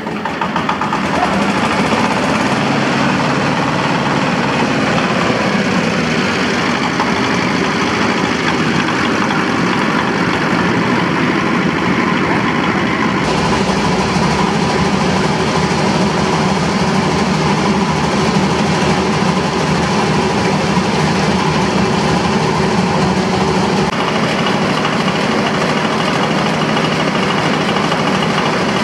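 Small 8 PK single-cylinder diesel engine running steadily and driving a belt-driven peanut shelling machine under load, with the machine's rattle mixed into the engine noise. It grows louder over the first second, then holds steady.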